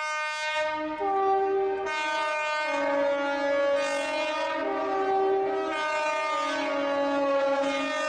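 Air raid siren sounding a horn-like chord of several tones, stepping between higher and lower pitches about once a second.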